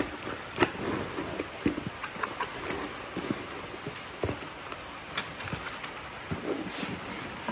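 Cardboard box being unpacked by hand: flaps pulled open and the foam-packed contents shifted, giving scattered rustles, scrapes and light knocks.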